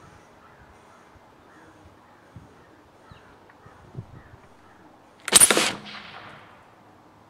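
Homemade PVC compressed-air gun firing a .54 caliber lead ball at about 100 PSI: one sharp, loud blast of released air about five seconds in, dying away over about a second.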